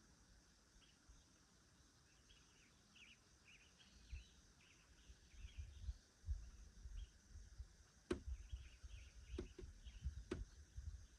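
Quiet woodland ambience: faint bird chirps, low rumbling bursts from about four seconds in, and three sharp clicks in the second half.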